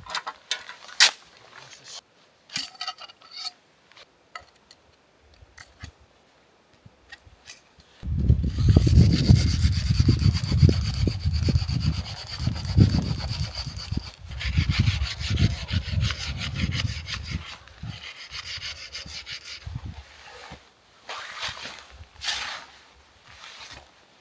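A few scattered clicks, then from about eight seconds in a long stretch of loud, close rubbing and scraping with a heavy low rumble, fading out after about twelve seconds into a few knocks.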